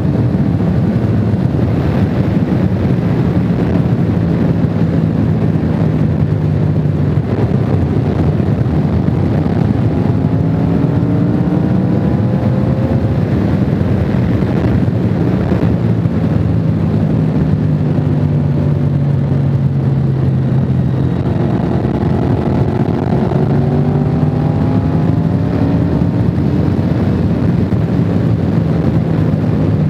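Honda VFR750's V4 engine running under way at a steady cruise over a constant rush of wind and road noise, its pitch rising gently a couple of times as the bike speeds up.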